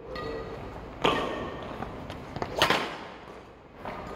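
Badminton rackets striking a shuttlecock during a rally: two sharp hits about a second and a half apart, with a few lighter taps, ringing briefly in a large hall.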